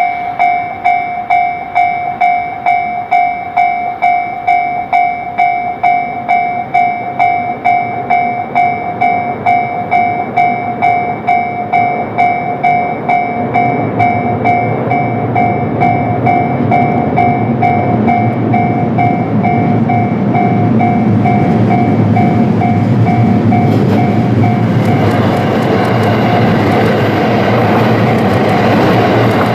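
Japanese level-crossing warning bell ringing in an even beat, about two strikes a second. From about halfway, the rumble of an approaching train builds and covers the bell. Near the end, the JR West 281-series limited express EMU runs through the crossing, its wheels clacking over the rail joints.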